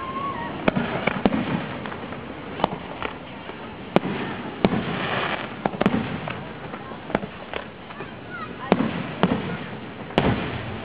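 Aerial fireworks shells bursting in a display: a dozen or so sharp bangs, roughly one a second, with crackling in between.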